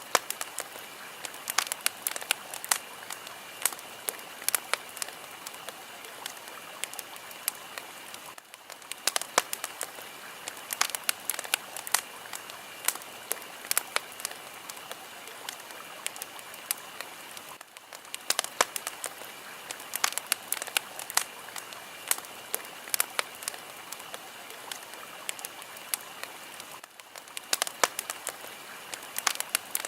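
Fire crackling: a steady hiss with frequent sharp pops and snaps, dipping briefly about every nine seconds.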